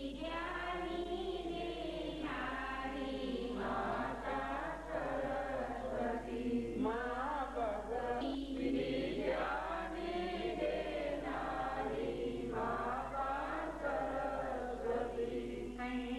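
A group of voices singing or chanting a melody together, carried on continuously with a steady low hum underneath.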